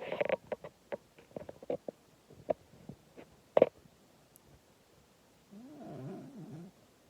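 Sleeping cat snoring: a crackly, irregular rattle of clicks over the first few seconds, then after a pause a longer, pitched, wavering snore about five and a half seconds in.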